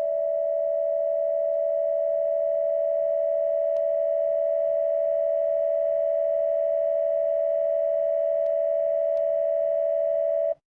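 A single steady electronic alert tone, held unchanged for about ten and a half seconds and then cut off abruptly: the attention signal of a mock emergency broadcast, between the announcement of a national emergency and the spoken instructions.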